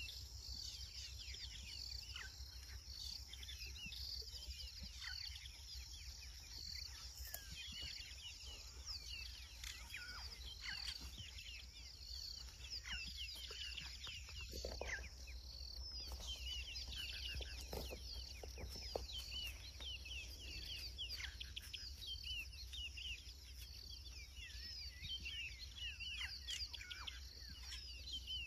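African bush ambience: many birds chirping with quick falling calls over a steady, pulsing insect buzz, with a steady low hum underneath.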